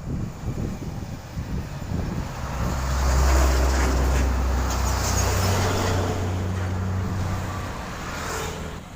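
Engine of a heavy road-construction vehicle running close by, a low drone that swells about three seconds in and fades again near the end.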